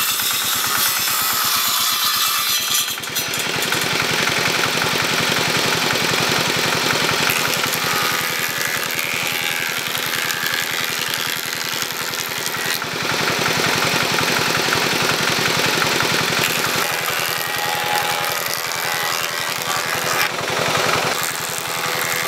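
Homemade table saw's circular blade ripping a long wooden plank lengthwise, with the saw's motor running throughout. The cutting noise shifts in tone a few times as the board is pushed through.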